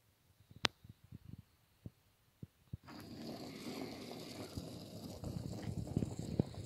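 A few light clicks and knocks, then about three seconds in the small electric drive motor of a Car System model tow truck starts and runs with a steady whirr and hiss as the truck drives off.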